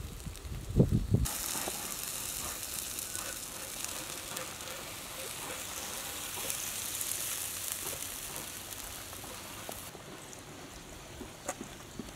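Whole marinated fish sizzling on a wire grill over glowing charcoal as it is basted: a steady hiss with fine crackles that sets in about a second in and dies down near the end. A few low thumps come just before the sizzling starts.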